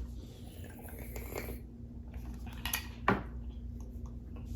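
A few light knocks and clinks of dishes or cups against a table, over a low steady hum.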